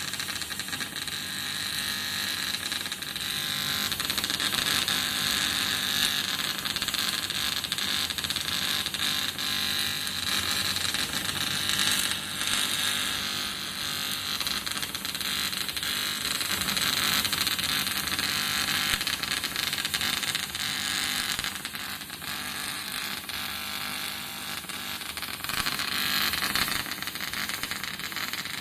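AC TIG welding arc on aluminium, buzzing steadily with a hiss, dipping a little about three-quarters of the way through.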